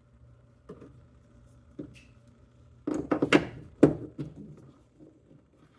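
Plastic clicks and knocks of a turn-signal bulb and its twist-lock socket being handled: two light taps, then a quick run of sharper clicks about three seconds in.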